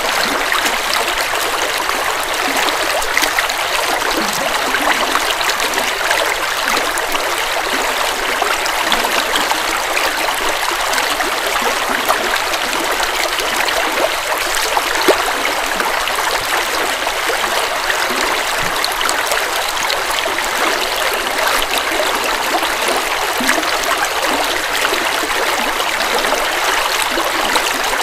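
Forest river water flowing steadily over rocks, an unbroken rushing and trickling.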